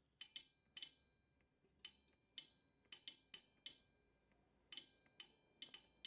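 A dozen or so faint, sharp clicks at irregular spacing, some in quick pairs, with a slight metallic ring: a metal can being touched against an inductive proximity sensor, which switches a relay module on and off.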